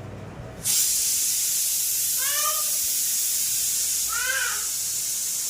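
Pressure cooker whistle blowing off steam, a loud steady hiss that starts abruptly about a second in. Over it come two short rising-and-falling whining calls from an animal.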